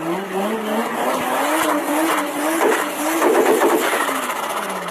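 Turbocharged car engine revving, with a rapid fluttering chatter from the turbo's compressor in the middle of the rev. The engine pitch falls near the end.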